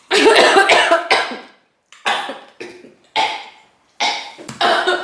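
A woman coughing hard with a mouthful of fried cheese ball, in four bouts: a long one at the start, then three shorter ones about a second apart.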